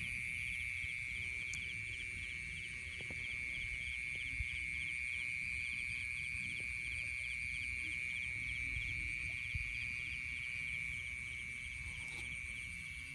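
Night-time chorus of calling animals: a steady high-pitched trill with a rapid pulsing call just above it, unchanging throughout, over a low rumble underneath.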